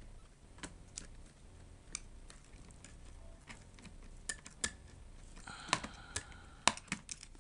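Scattered light clicks and taps of small laptop parts being handled as the MacBook's motherboard is worked loose, coming more often in the second half.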